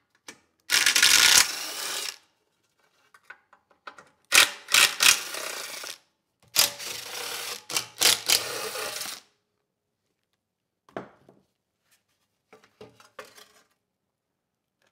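Cordless impact driver unscrewing the bolts of a Subaru EX30 engine's recoil starter housing: three short runs, each hammering hard as a bolt breaks loose and then spinning it out more quietly. Near the end come a few light clicks and rattles of loose bolts and the plastic housing being handled.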